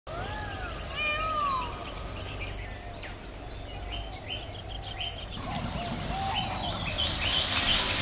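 Wild birds calling over a steady, high-pitched insect drone. A few whistled, swooping calls in the first two seconds give way to many short, repeated chirps that grow denser toward the end. A wash of hiss comes in near the end.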